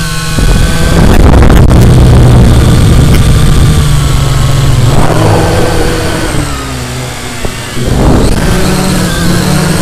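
Electric motors and propellers of a camera-carrying drone heard from on board, a steady buzzing whine whose pitch sags and rises with the throttle. Rushing air noise swells about a second in and again near the end as it dives toward the ground and climbs back.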